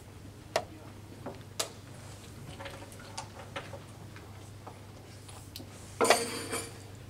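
Wooden chess pieces knocking on the board and a chess clock's button being pressed during a rapid game. Two sharp clicks come about half a second and a second and a half in, then a few fainter taps, and a longer clattering knock about six seconds in.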